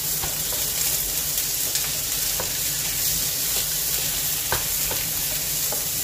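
Shell-on shrimp sizzling as they fry in margarine with onion and garlic in a frying pan, stirred with a wooden spatula that gives short knocks and scrapes against the pan now and then. The shrimp are being cooked until they turn red.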